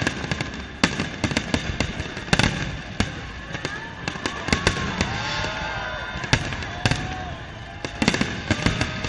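Aerial fireworks display: a rapid, irregular string of bangs and crackles from shells bursting overhead.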